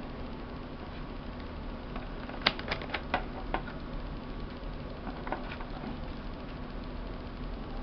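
Light clicks and taps from hands and multimeter probes handling a circuit board: a quick run of about six a couple of seconds in, and a few fainter ones later, over a steady faint hum.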